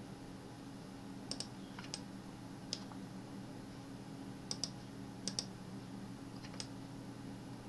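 Quiet, scattered clicks of a computer mouse and keyboard, about nine in all, several in quick pairs, over a faint steady low hum.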